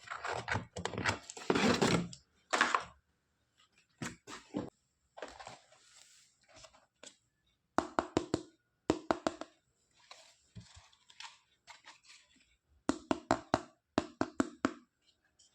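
Small hard objects being handled: quick knocks, clacks and rustling in bursts, densest in the first few seconds, with groups of rapid clacks about eight, nine and thirteen to fifteen seconds in.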